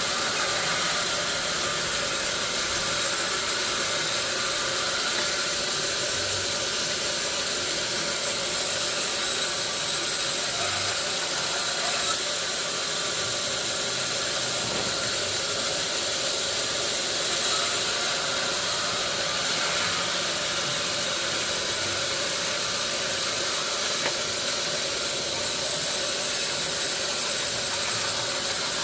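Sawmill machinery running steadily: a constant hiss with a few steady humming tones, unchanging throughout.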